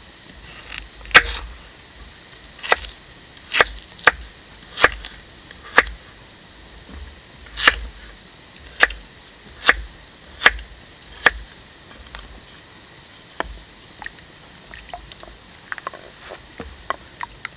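Knife blade chopping through a raw potato and knocking on a wooden cutting board, one sharp knock about every second, around a dozen in all. Near the end the knocks turn into fainter, quicker taps.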